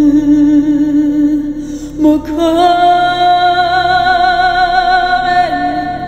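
Wordless vocal toning in long held notes with a slight waver: a low note, a short break about two seconds in, then a higher note held for about three seconds before dropping back to the lower one.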